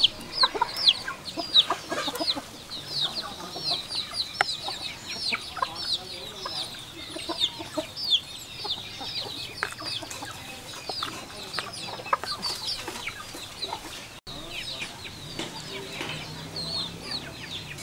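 Chickens chirping: a steady stream of short, high, falling peeps with scattered clicks.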